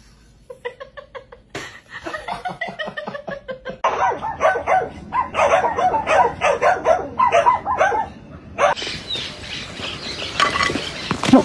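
A dog barking over and over in quick, short barks, with the sound changing abruptly a few times. A sharp thump comes near the end.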